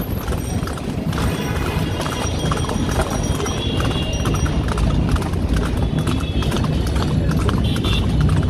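Hooves of a pair of carriage horses clip-clopping on an asphalt road, with steady street noise beneath.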